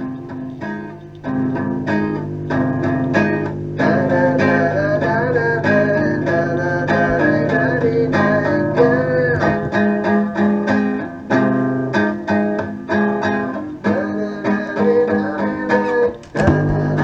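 A song with strummed and plucked guitar plays, with a singing voice coming in about four seconds in.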